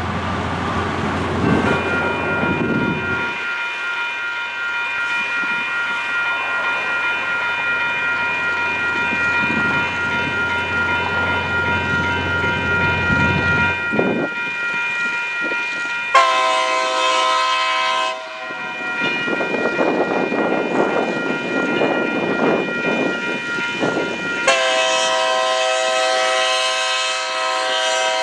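Railroad crossing bell ringing steadily as the crossing activates, with a Union Pacific locomotive's air horn blowing two long blasts for the crossing, the first about two seconds and the second about four seconds long.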